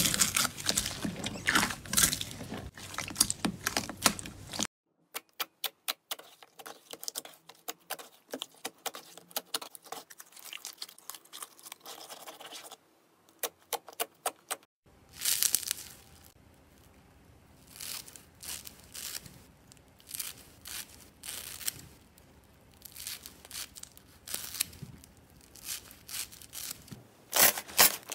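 Hands squishing and poking slime. First a dense crunching as glittery slime is kneaded with foam beads, then a long run of sharp little clicks and pops, then softer sticky crackles that grow loud again near the end.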